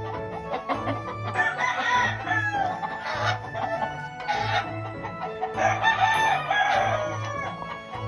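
Gamefowl rooster crowing twice, the first crow about a second and a half in and the second near six seconds, each lasting a second or two, over background music with a steady beat.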